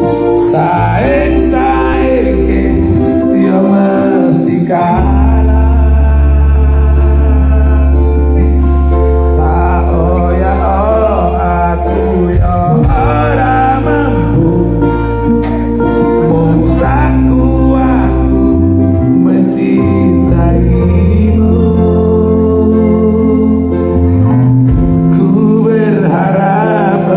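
Live band with a male singer on microphone, keyboards, guitar and Javanese kendang hand drums playing a song through a PA at a sound check, with deep sustained bass notes under the vocal.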